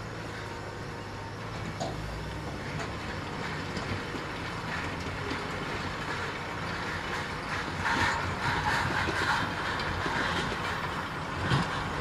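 Shantui SD22 crawler bulldozer running as it pushes snow and wood debris: a steady diesel drone with its steel tracks clanking and rattling. The clatter grows louder in the second half, with a sharp knock near the end.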